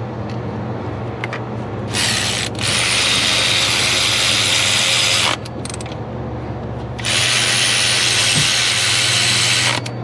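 A power ratchet running in two steady bursts of about three seconds each, working the bolts of the truck's belt pulleys.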